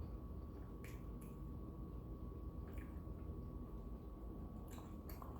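Close-up eating sounds: a person chewing a spicy fried chicken sandwich with wet lip smacks, heard as a handful of short smacking clicks spread across a few seconds over a faint steady hum.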